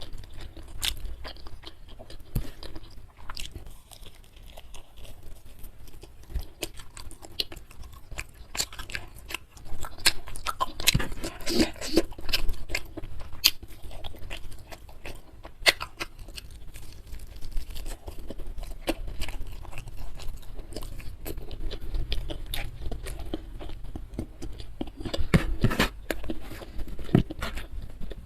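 Close-miked chewing and crunching of food, a steady run of small crackling bites, busier around ten to thirteen seconds in and again near the end.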